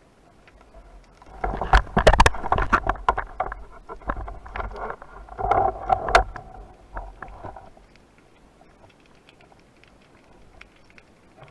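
Underwater handling noise of a speargun being worked: dense clicks, knocks and rumbling for about six seconds, starting a second and a half in, as the cuttlefish comes off the shaft and the rubber bands are pulled back to reload, heard through the camera housing. Faint water noise before and after.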